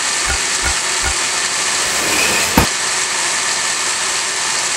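Homemade belt sander driven by a salvaged water-pump motor, running steadily with a hissing noise. There are a few soft thumps in the first second and one sharp click about two and a half seconds in.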